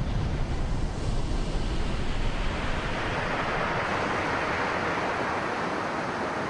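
Ocean surf washing on a beach, a steady hiss of breaking waves that swells about halfway through, with wind buffeting the microphone as a low rumble, heaviest in the first few seconds.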